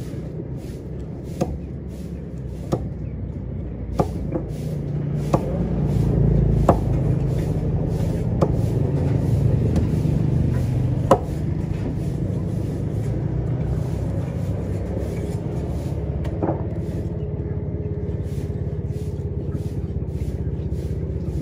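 A heavy cleaver-like knife chopping through tuna flesh onto a cutting block, with sharp single chops about every second and a half at first, then further apart, over a steady low rumble.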